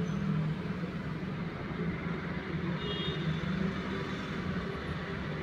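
Battery-powered toy bullet train running along its plastic track: a steady whir from its small electric motor and wheels. It is running smoothly now that the track sits the right way round.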